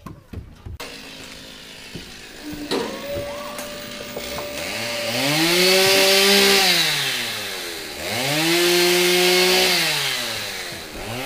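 Chainsaw idling, then revved up twice into cuts through a dead branch, each time held at high revs with the hiss of the chain in wood before dropping back. It revs up again near the end.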